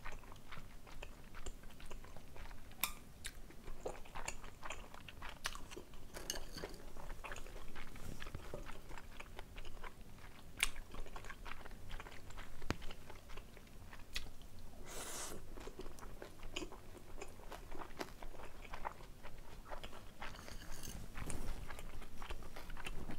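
Close-miked chewing and biting of jajangmyeon with thick Chinese glass noodles, pork and chopped green chili peppers, with many small wet clicks and crunches and a brief louder rush of noise about fifteen seconds in.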